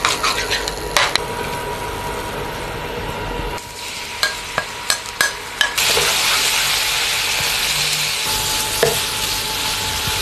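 A metal spoon stirs and clinks against a ceramic bowl of chili sauce. A few sharp taps follow. From about six seconds in, the sauce sizzles loudly as it is stirred in a hot pan.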